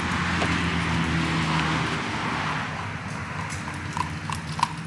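A car passes on the road. Then, from about three and a half seconds in, a horse's hooves clip-clop on the pavement in an even trot, about three strikes a second, as it pulls a buggy past.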